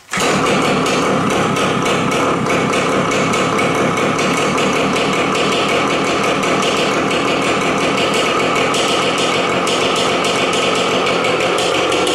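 1993 Yamaha RT100's single-cylinder two-stroke engine catching on a cold start and running steadily with no muffler fitted, a loud, fast popping exhaust note.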